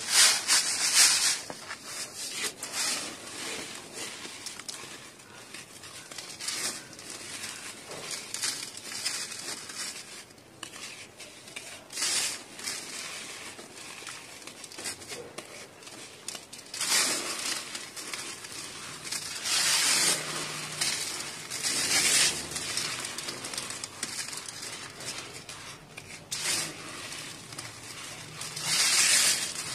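Dry lumps of red dirt crunching and crumbling between fingers on a wire-mesh sieve, with the fine powder hissing through the mesh, in uneven gritty bursts every few seconds.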